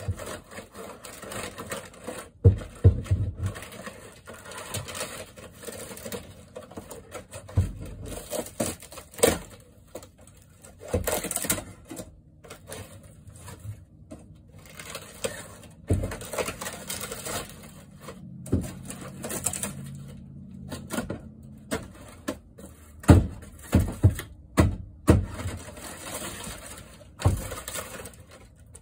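Thin wood wall paneling and trim in a motorhome being pried off and broken by hand: irregular cracking, snapping and splintering with scraping between, and several sharp knocks.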